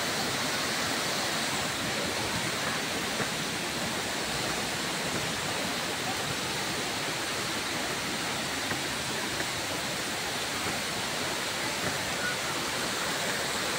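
Steady rushing of a waterfall and its stream, an even wash of falling water with no break.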